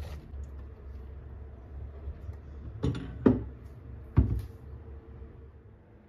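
Biscuits being handled over a stainless steel bowl and a glass baking dish: three sharp clicks and knocks about three and four seconds in, over a low steady hum.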